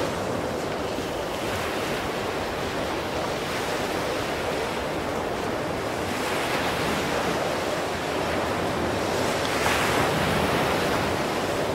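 Shallow surf washing in around the feet, with wind buffeting the microphone; the wash swells a little past the middle and eases near the end.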